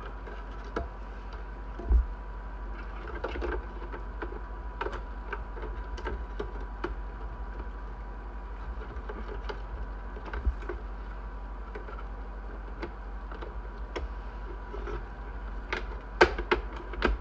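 Plastic housing parts of a Keurig K Supreme Plus coffee maker being handled and pried apart: scattered small clicks and knocks of plastic, with a thump about two seconds in and a cluster of louder clicks near the end, over a steady low hum.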